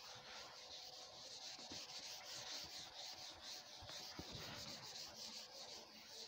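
Faint rubbing of a whiteboard eraser wiping marker off a whiteboard in repeated back-and-forth strokes.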